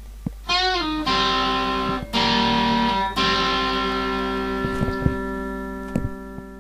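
Distorted electric guitar music: a slide up into a chord, then three held chords, the last one left ringing and slowly fading.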